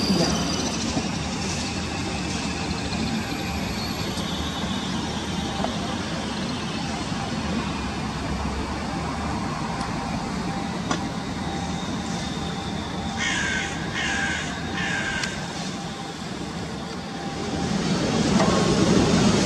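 BLS electric multiple unit running past on the tracks, its wheels and running gear giving a steady rumble. About two-thirds of the way through, a bird gives four short, harsh calls in quick succession.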